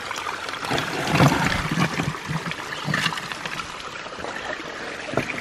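Small creek trickling and splashing over rocks, with a few low thumps about one to three seconds in as a hand works in the water among the rocks.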